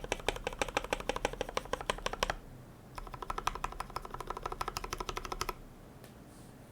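Typing on a KBD75v2 mechanical keyboard with lubed, filmed Gateron Milky Yellow linear switches, an aluminium plate and PBT keycaps. Two fast runs of keystrokes, about ten a second, with a short pause between them. The typing stops a little more than a second before the end.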